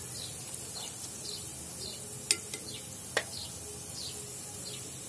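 Vegetable manchurian balls deep-frying in hot oil in a clay kadhai, a steady high sizzle. Two sharp taps about a second apart come near the middle, and birds chirp in the background.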